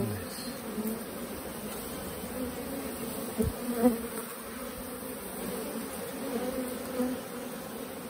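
A honey bee swarm buzzing close by in a steady hum as the bees are swept off a log with a bee brush. A couple of soft thumps come about halfway through.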